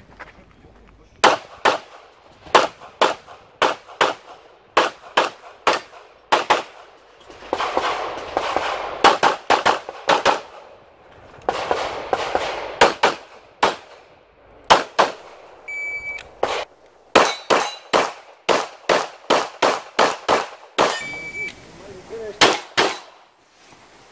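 Rapid 9mm pistol fire from a CZ Shadow 2 shooting an IPSC stage: shots come in quick pairs and short strings, with brief pauses between target arrays. A short ringing tone sounds twice, about two thirds of the way in and again near the end.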